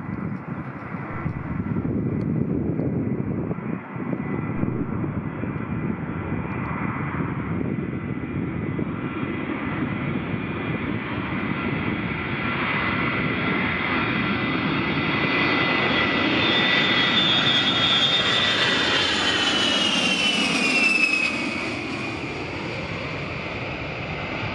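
Boeing E-3A AWACS's four TF33 turbofan engines on low approach, their noise growing steadily louder with a high whine. The whine drops in pitch as the aircraft passes, about three-quarters of the way through, and the sound then eases.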